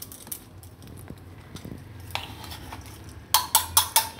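Steel spoon clinking against stainless steel vessels as ground spice powder is scraped out of a mixer jar and into a bowl. Faint light taps at first, then about five quick ringing clinks near the end.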